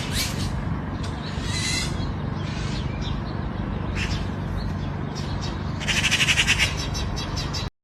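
A bird calling in fast chattering bursts, one at the start and another about six seconds in, with a few shorter calls between, over a steady low rumble. The sound cuts off suddenly near the end.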